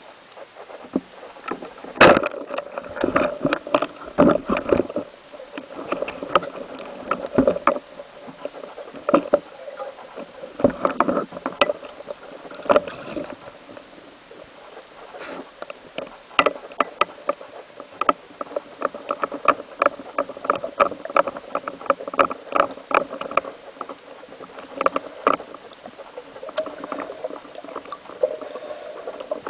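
Muffled underwater noise picked up through a camera housing, full of irregular clicks and knocks, with the sharpest knock about two seconds in.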